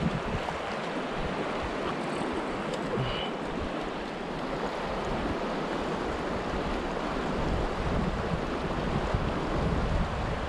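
River current rushing steadily over a rocky riffle, with wind buffeting the microphone in low, uneven rumbles.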